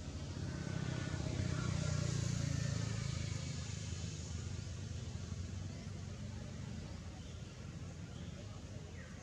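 A motor vehicle passing at a distance: a low engine rumble that swells over the first few seconds, then slowly fades.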